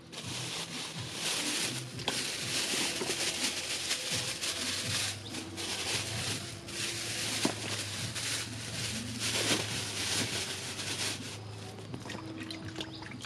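Close, crackly rustling and crinkling as vegetables and a thin plastic bag are handled, starting abruptly and going on without a break.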